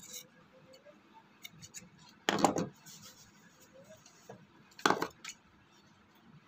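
Steel tailoring scissors snipping through shirt cotton, two short cuts about two and a half seconds apart, with light clicks of the blades and fabric handling between them.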